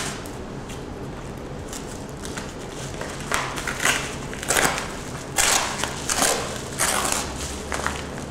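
A paper mailing envelope being handled and crinkled. It is fairly quiet at first, then from about three seconds in comes a run of separate rustles and crackles.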